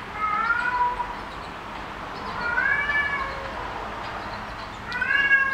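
Persian kitten meowing three times, high-pitched calls about a second long and roughly two seconds apart.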